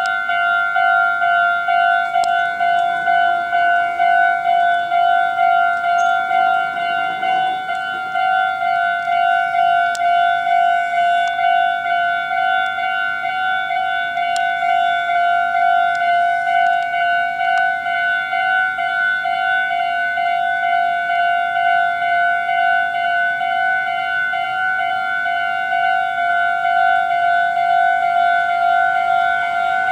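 Electronic warning bell of a Japanese railway level crossing ringing, a steady pulsing ding repeated at an even pace, signalling that a train is approaching.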